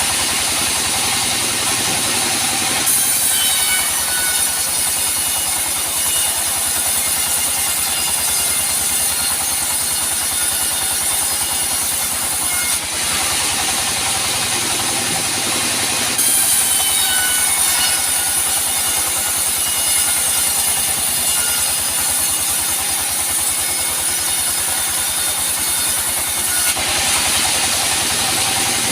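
Band sawmill running and sawing teak logs, loud and continuous. The sound changes every so often, with two long stretches of about ten seconds each that carry a faint high whine.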